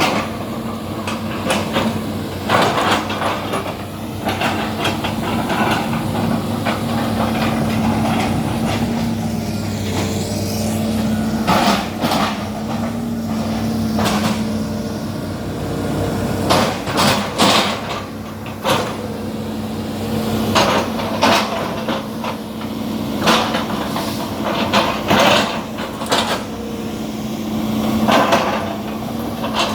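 Excavator engine running steadily, with a string of sharp knocks and cracks as the machine chops oil palm trunks, coming thickest in the second half.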